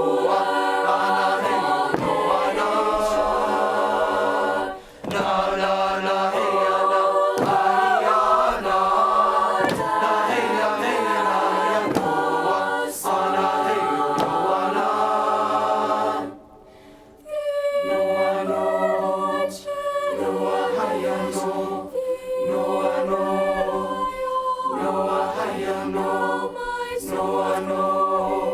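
Choir singing a chant-like song on wordless syllables in sustained, held notes, with two short breaks, the longer about two-thirds of the way through.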